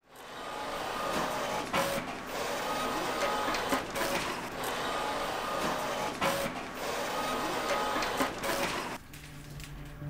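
Wide-format roll-fed paper plotter running, its carriage moving with a rhythmic whir and a pair of sharp clicks about every two seconds. It stops about nine seconds in, giving way to a low steady drone.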